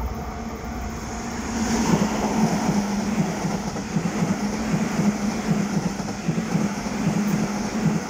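Hokuso 7800-series electric commuter train passing close by: a loud, steady rush of wheels on rails and running gear. It builds about a second and a half in and starts to drop away as the last car clears near the end.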